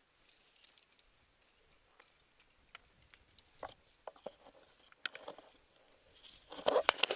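Climbing rope and carabiners being handled close to the microphone: scattered faint clicks and rustles, then a louder clatter of knocks and clinks near the end.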